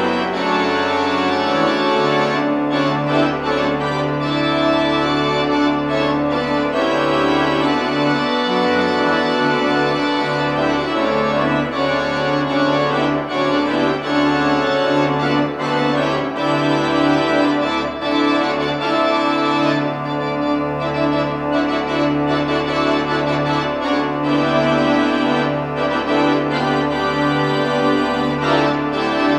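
Organ music playing slow, held chords that change every few seconds.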